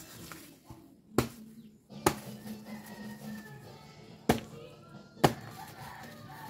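Four sharp chops of a bolo knife blade into a jackfruit, the first about a second in and the last about five seconds in, over background music.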